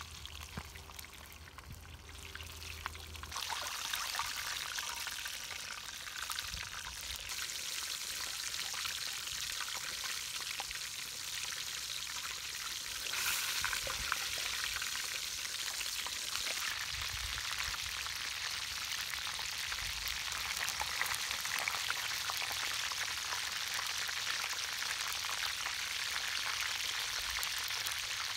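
Whole chicken deep-frying in oil in a metal wok: steady sizzling with dense crackles. It grows louder about three seconds in and again about halfway through.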